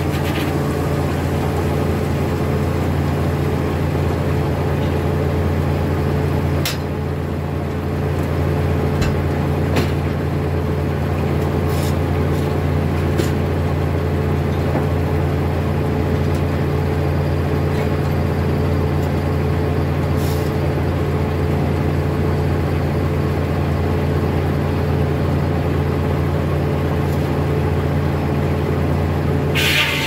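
Foley Belsaw circular sawmill running, its blade spinning free without cutting, a steady low drone. A few sharp knocks and clacks sound through it as the log and carriage are handled.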